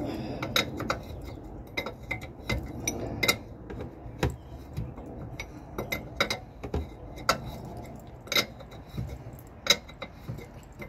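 Irregular sharp metallic clinks and taps of a hand tool working on the lower ball-joint nut under a minivan's front steering knuckle.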